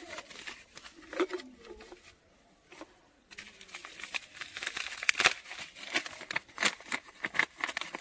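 Paper coffee filter being folded and handled, a dense, irregular crinkling that starts about three seconds in after a few faint rustles.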